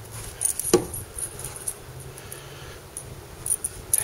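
Light metallic jingling and clicking, coming and going in short bursts, with one sharper knock about three quarters of a second in.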